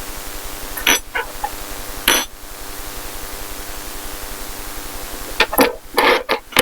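Small metal cabinet lock parts clicking and clinking as they are handled and fitted together: two sharp clicks about one and two seconds in, then a quick run of clinks near the end, over a steady background hiss.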